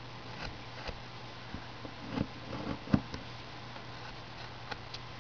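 Carving knife cutting into a small wood carving: scattered light clicks and scrapes, with one sharper knock about three seconds in, over a steady low hum.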